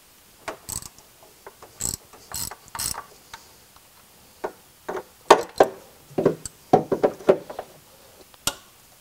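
Hand ratchet clicking in short, irregular runs while the two 8 mm bolts holding the starter motor are backed out, with small metal clinks from the socket and bolts.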